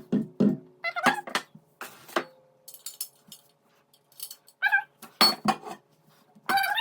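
A pet animal calling in several short, high, wavering calls, mixed with sharp clicks and light metallic clinks.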